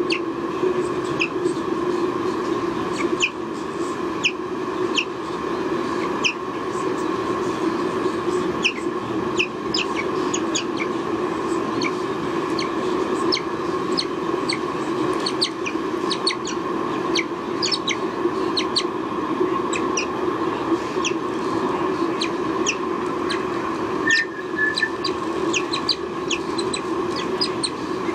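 Short, high, downward-sweeping bird chirps, irregular but about one to two a second, over a steady hum.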